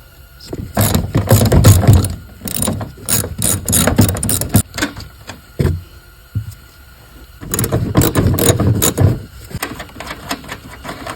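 Plastic push clip being pried out and the trunk's side trim carpet pulled loose: two long runs of rapid clicking and rattling, the first about four seconds long, the second near eight seconds and shorter.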